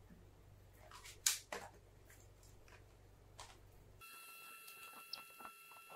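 Faint scattered clicks and taps of a small screwdriver and tiny screws as the laptop's back-panel screws are taken out, the sharpest about a second in. About four seconds in the background hum cuts off and a steady high whine comes in, with a few more light clicks.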